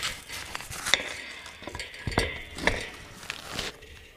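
Hand tools and metal parts of a tool cutter grinder clinking and knocking as the machine is worked on by hand: a handful of separate sharp clinks, fading out near the end.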